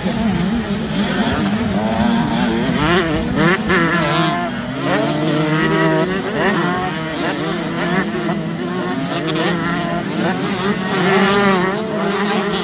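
A pack of 125cc two-stroke motocross bikes revving hard as they ride past, several engines rising and falling in pitch at once as they open up and shift. It is loudest a few seconds in and again near the end as the bikes come closest.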